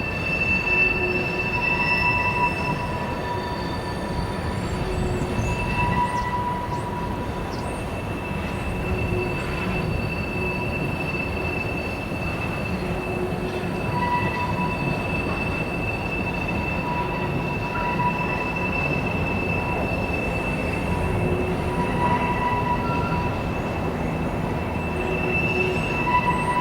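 Freight train of oil tank cars rolling past with steel wheels squealing on the rail: several steady high squeal tones that swell and fade over a constant rolling rumble.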